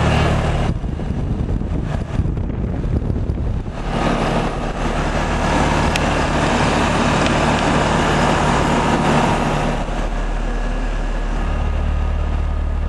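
Old Comfort Maker central air conditioner running: a steady low mechanical hum under a rushing of air that grows louder through the middle and eases off near the end.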